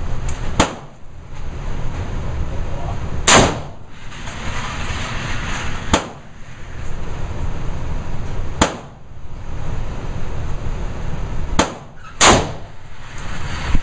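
AK-47 rifle firing six single shots, roughly one every three seconds with the last two close together, each crack ringing out in an enclosed indoor range. A steady low rumble runs underneath between shots.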